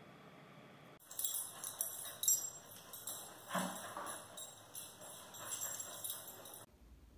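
Dog's collar tags jingling in quick, irregular shakes as the dog moves, with a short low sound about halfway through; the jingling cuts off abruptly near the end.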